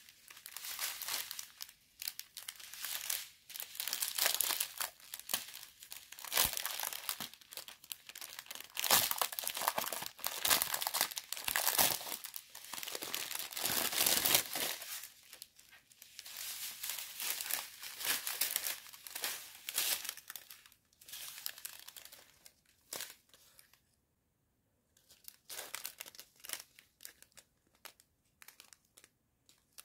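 Clear plastic packaging crinkling as the strip bags of diamond painting drills and the canvas's plastic cover are handled. It comes and goes unevenly, with a short quiet pause about three-quarters of the way through.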